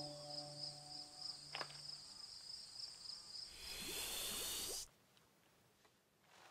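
Faint, steady cricket-like chirring under fading low sustained tones. A single click comes about a second and a half in. Then a loud hissing rush lasts about a second as the kiwi pecks up the nugget, and it cuts off abruptly into near silence.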